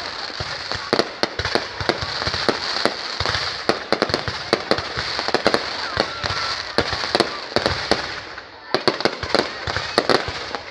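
Fireworks and firecrackers going off in a dense, irregular run of sharp bangs and pops over a continuous crackling hiss, easing briefly near the end.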